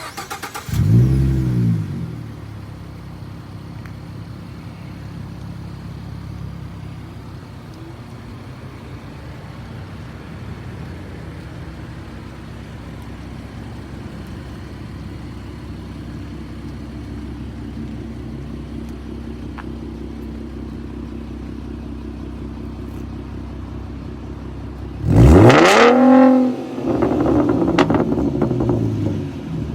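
2014 Ford Mustang's exhaust: a quick throttle blip about a second in, then a steady idle for over twenty seconds. Near the end come a hard rev and a second rev, with exhaust crackles and pops as the revs drop.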